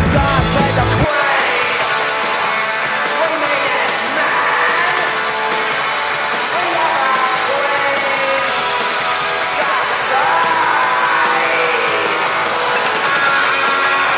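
A loud rock song with a male singer over a full band of guitars and drums, in a punk/metal style.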